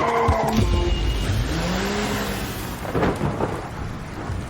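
A low rumble under a steady rushing noise, heaviest in the first two seconds, with a faint pitched glide that rises and falls partway through.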